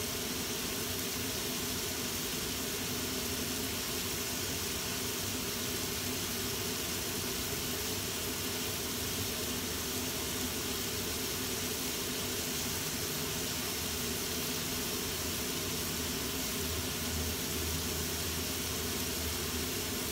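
Steady hiss with a low hum underneath from a stovetop pan of squid rings, tomato and shallots cooking, with no stirring or clatter.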